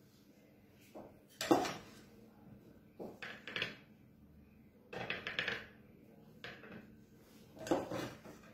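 Metal spatula scraping and clinking against a bowl as cream is scooped out and spread onto a cake. There are about five separate scrapes, the loudest about a second and a half in.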